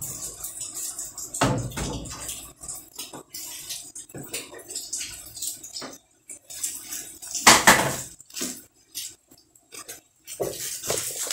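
Bubble wrap around a fishing rod crinkling and crackling as it is handled, with a louder burst of rustling about seven and a half seconds in.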